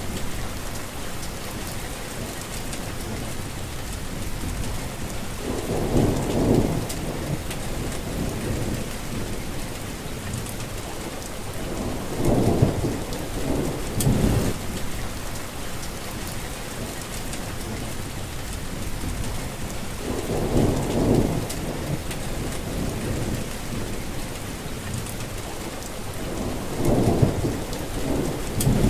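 Steady rain falling, with four low rumbles of thunder that swell and fade, a few seconds apart.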